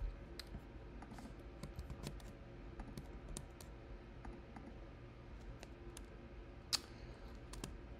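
Sparse keystrokes on a computer keyboard: single clicks and short runs with pauses between them, one noticeably louder key about three-quarters of the way through.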